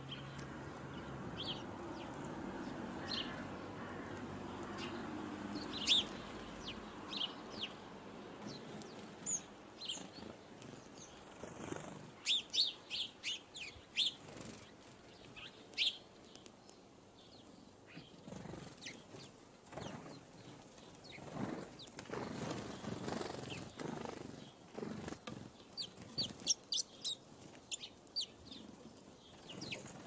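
Small garden songbirds giving short, high chirps, scattered at first, then a quick run of them about twelve seconds in and another near the end. Blue tits' wings flutter as they come and go at a hanging fat-ball feeder. A low rushing noise sits under the first several seconds.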